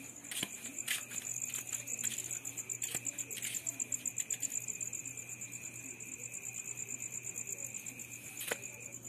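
Night insects, crickets, trilling steadily: a high, rapidly pulsing trill over a lower steady tone. A few light clicks and taps sound over it, the sharpest near the end.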